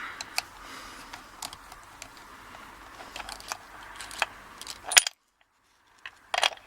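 Small metallic clicks and light scraping as a grub screw is worked out of the side of a Union 55mm steel padlock body, with one sharp click about five seconds in. The sound drops out briefly, then a few more metal clicks follow near the end.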